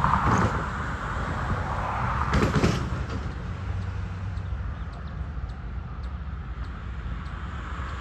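Diesel road-switcher locomotive running at low throttle as it creeps around a curve pulling hopper cars, with a steady low rumble. There are two brief, louder bursts of noise, one at the start and one about two and a half seconds in, and faint ticks in the middle.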